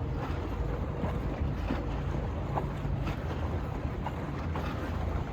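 Low, steady drone of a boat motor running in the inlet, with wind blowing on the microphone.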